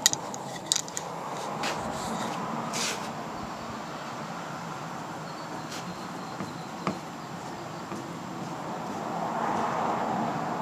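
Sharp clicks and taps of metal parts being handled and fitted inside a car door, several in quick succession at the start and two more about six and seven seconds in, over a steady background hum.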